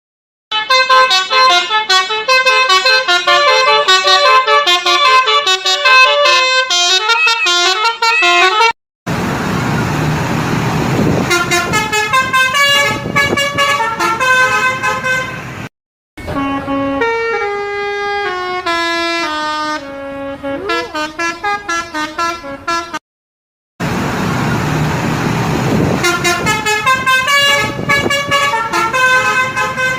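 Tour-bus 'telolet basuri' musical horns playing quick melodies of short notes, in four separate clips cut together, one with a long descending run of notes. A low rumble runs beneath the horn in two of the clips.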